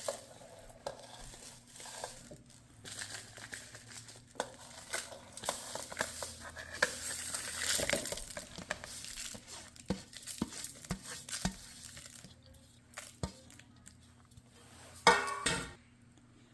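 Spices, chilies and coconut being put into a mixer-grinder jar: scattered small clinks and taps of spoons and containers against the jar, with soft rustling of the dry ingredients, and a louder clatter near the end.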